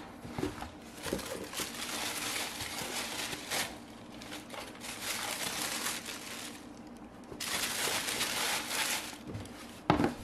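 Tissue paper rustling and crinkling in several stretches as it is folded back from around a pair of sneakers in a cardboard shoebox. A single sharp knock comes near the end and is the loudest sound.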